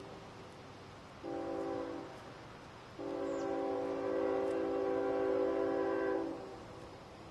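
A CSX freight locomotive's multi-tone air horn, still out of sight up the line, sounds a short blast about a second in, then a long blast of about three seconds. This is the end of the long-long-short-long grade-crossing signal.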